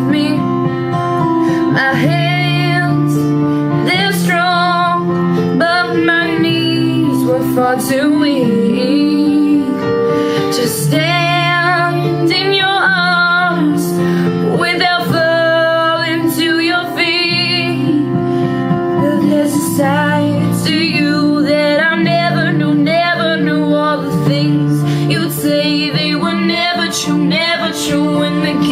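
Music: a woman singing a song over instrumental backing.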